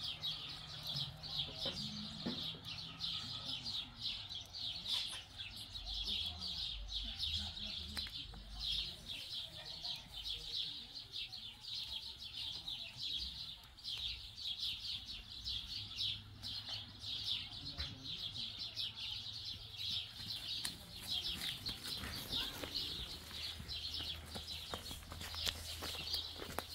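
A steady chorus of high, rapid chirping with a faint low hum underneath.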